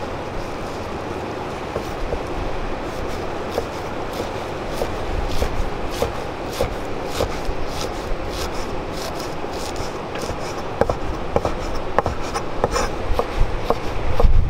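Chef's knife chopping leafy greens on a wooden cutting board: quick, uneven taps of the blade against the board, growing more frequent after the first couple of seconds, over a steady rushing noise.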